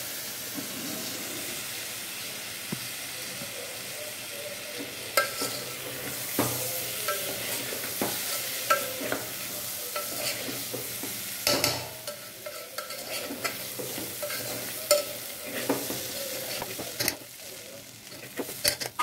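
Dal and rice sizzling as they are roasted in spiced oil in an aluminium pressure cooker, with a steel spoon scraping and clicking against the pot as it is stirred. The sizzle is steady under irregular spoon clicks and eases off a little about twelve seconds in.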